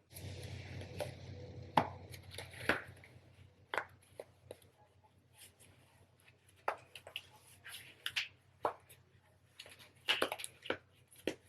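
Scattered light clicks and rustles of hands handling wig caps, taking one out and stretching it on. A faint low hum sits under the first few seconds.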